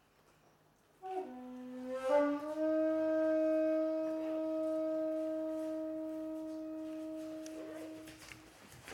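Jinashi nobe shakuhachi, a long bamboo flute with an unfinished bore, comes in about a second in with a few short notes that slide down and back up. It then holds one long, low note that slowly fades away near the end.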